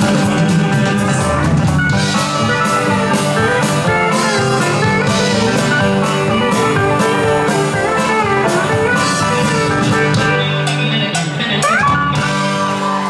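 Live rock band playing an instrumental passage: electric guitars over drums, with no singing. A note slides upward near the end.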